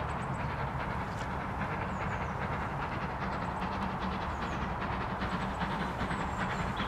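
Steam locomotive hauling a freight train, approaching but not yet close: a steady rumble with a quick, even beat, growing slightly louder toward the end.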